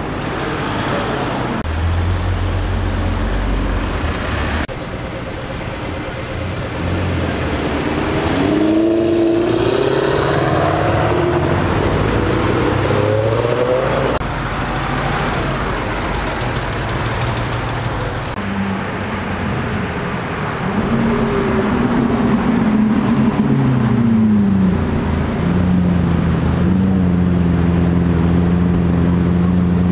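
Several performance cars pulling away from a car meet one after another, their engines and exhausts revving up with rising pitch through gear changes about a third of the way in and again past the middle. Near the end a deep, steady engine note as a Lamborghini Aventador's V12 rolls by at low speed.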